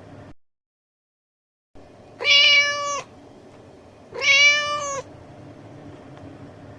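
Domestic cat meowing twice: two drawn-out meows just under a second each, about two seconds apart, over a faint background hiss. The sound cuts to dead silence for about a second before the first meow.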